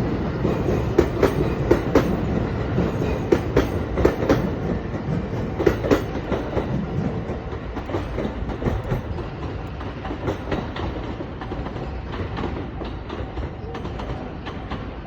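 Train passing over a level crossing, its wheels clacking over the rail joints. Sharp clacks come thick in the first six seconds, then give way to a rumble that slowly dies down.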